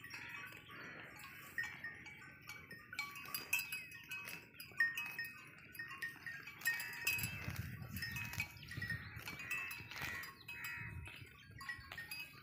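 Small bells on grazing cattle clinking irregularly in short, high notes, with a low rumble joining about seven seconds in.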